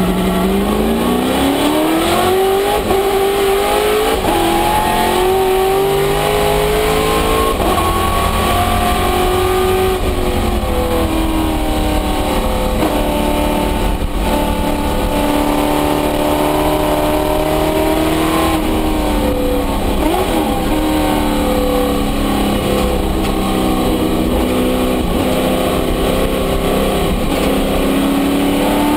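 Race car engine heard from inside the cockpit at racing speed. The engine note climbs steeply over the first couple of seconds, then holds high with slow rises, drops briefly about two-thirds of the way through, and climbs again near the end.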